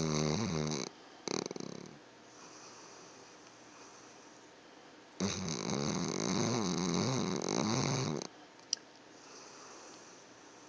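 A dog snoring loudly while asleep. A snore ends just under a second in and a shorter breath follows; after a pause, one long snore of about three seconds comes in the middle. Soon after it there is a single short click.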